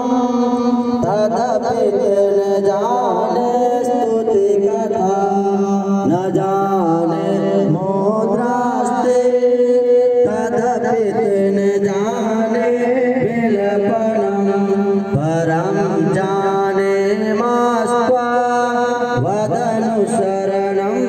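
Hindu devotional song: a voice singing a chant-like melody over a steady held drone, continuous and loud.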